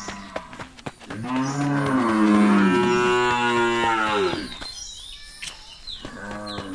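A cow mooing: one long, loud call of about three seconds, starting about a second in.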